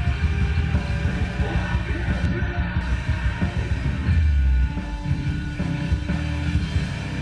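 Rock band playing a song live: dense, steady rock music with heavy low end.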